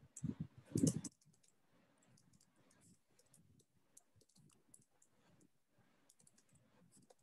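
A brief low voice in the first second, then faint computer-keyboard typing: scattered light key clicks as a line of text is typed.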